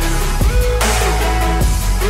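Background electronic music with a deep bass and a pattern that repeats about every second and a bit, with short gliding synth tones and hissing sweeps.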